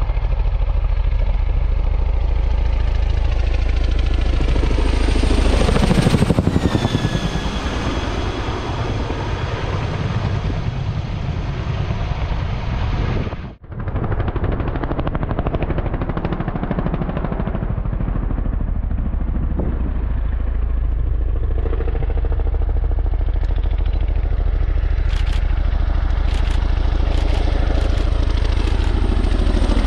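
Boeing CH-47 Chinook tandem-rotor helicopter flying low and fast, with loud rotor chop and engine whine. The whine falls in pitch as it passes overhead about six seconds in. The sound drops out for a moment about 13 seconds in, then the helicopter approaches again and grows louder toward the end.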